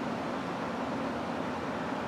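Steady outdoor background noise, an even rush with a faint steady low hum underneath; no bird call is heard.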